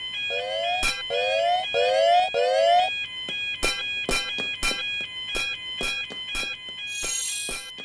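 Electronic railroad crossing warning bell, the Japanese "kan-kan" type, ringing as a steady back-and-forth of two tones. Four short rising whoops sound over it in the first three seconds, followed by a run of sharp clicks about one and a half a second.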